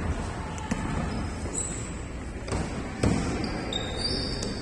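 A basketball bouncing on an indoor court in play: a few scattered thuds, the loudest about three seconds in, with several short high squeaks in between.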